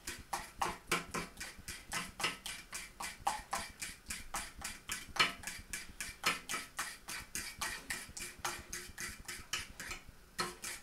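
Fork beating a thin, over-watered batter in a ceramic bowl, the tines clicking rhythmically against the bowl about four to five times a second, with a short pause near the end.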